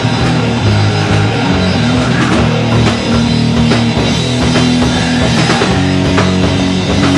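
A live rock band playing heavy stoner-rock: electric guitar and bass guitar riffing over a drum kit with steady drum hits.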